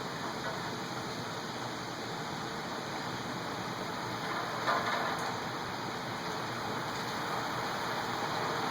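Heavy thunderstorm rain falling in a dense, even hiss, with a brief louder surge about halfway through.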